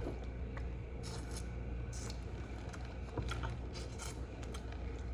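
Faint eating sounds: scattered soft clicks and scrapes from chewing and handling seafood and noodles, over a steady low hum.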